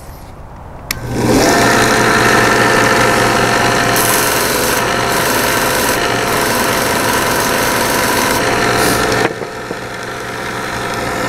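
Harbor Freight 1x30 belt sander, fitted with a leather strop belt, switched on about a second in and then running steadily with a motor hum and whine. A bar of green stropping compound is pressed against the moving belt, adding a scratchy hiss that comes and goes and stops shortly before the end.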